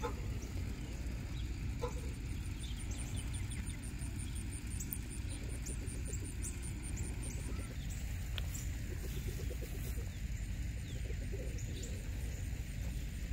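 Outdoor garden ambience: a steady low rumble with faint, scattered high bird chirps and a fast, high-pitched ticking between about two and seven seconds in.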